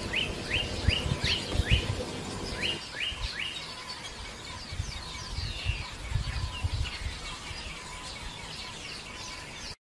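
Birds chirping: a short call repeated about three times a second for the first few seconds, then scattered chirps, over low rumbles. The sound cuts off just before the end.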